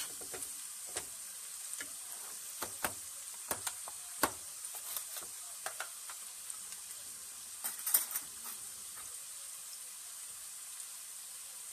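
Chopped onion and green chilli peppers sizzling steadily in hot oil in a frying pan, just after going in. Scattered sharp pops and knocks come through the sizzle, loudest in a cluster about eight seconds in.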